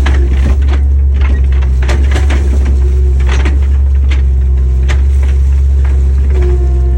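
Diesel engine of compact earthmoving equipment running at a steady speed, with irregular knocks, clanks and scraping from the machine at work.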